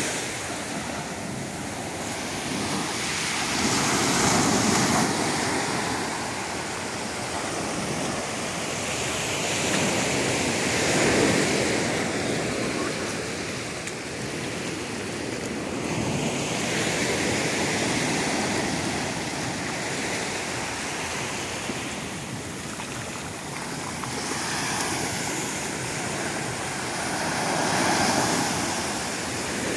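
Small ocean waves breaking and washing up the sand, the surf swelling and fading in slow surges every several seconds.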